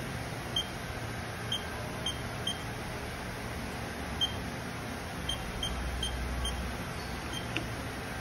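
About ten short, high electronic beeps at irregular intervals over a steady low hum: keypresses on the control panel of a 2000 Haas VF-0 CNC vertical machining center.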